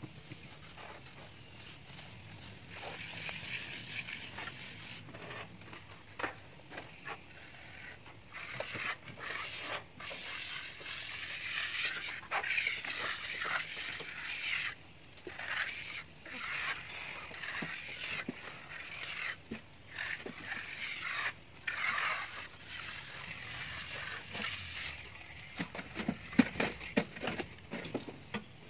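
Steel plastering trowel scraping and spreading wet cement render across a wall, uneven and continuous, with a few sharp taps near the end.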